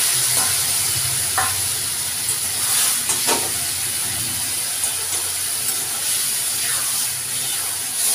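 Boiled biulir (urad) dal sizzling steadily in hot mustard-oil tempering in a pan. A metal spatula stirs it, scraping the pan a few times.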